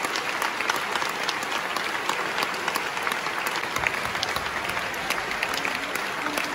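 Theatre audience applauding steadily, a dense wash of many hands clapping at once with no let-up.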